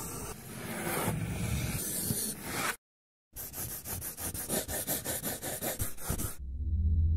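Pencil scratching over paper: a stretch of continuous scratching, a brief break just under three seconds in, then quick repeated strokes. Near the end a deep gong-like tone swells in.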